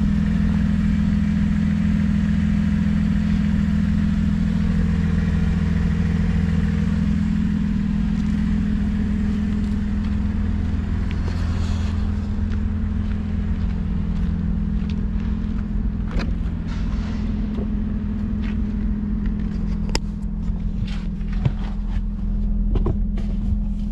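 Car engine idling steadily with a deep, noisy exhaust note from a broken exhaust pipe leaking before the muffler. A few light clicks and knocks come in over the last third.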